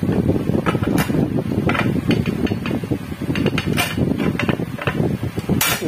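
Hand pop-rivet tool being squeezed again and again to set a rivet in a sheet-metal box, giving irregular sharp metallic clicks and clacks. A stronger snap comes near the end, as the rivet sets.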